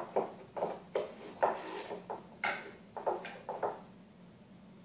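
Handling knocks and clicks from a small wooden microphone-capsule box being opened: about ten sharp taps of wood in quick succession, stopping after about three and a half seconds.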